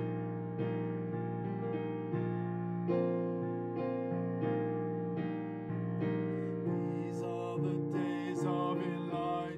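Electric piano playing a song introduction, chords struck about once a second. Near the end a voice starts singing over it.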